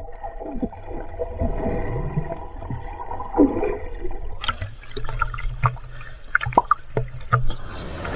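Muffled underwater sound picked up by a camera held beneath a river's surface: gurgling and bubbling, with a run of sharp clicks and pops from about halfway on. A wash of splashing comes in at the very end as the camera breaks the surface.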